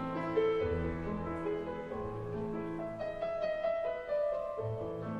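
Background music on a keyboard instrument: a calm melody of held notes over a low bass line.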